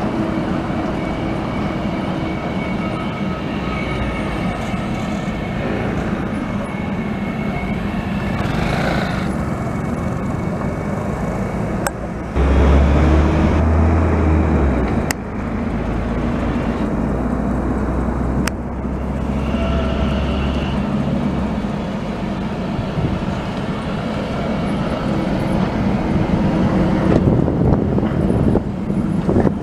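Translohr rubber-tyred trams rolling past with a steady electric hum, over city traffic noise. The sound changes sharply several times, and a deep rumble runs for several seconds in the middle.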